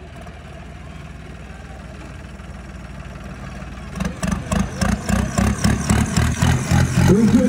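Modified stunt tractor's diesel engine running steadily, then from about four seconds in getting much louder and revving in rapid repeated bursts, several a second, as the tractor is driven hard around the dirt arena.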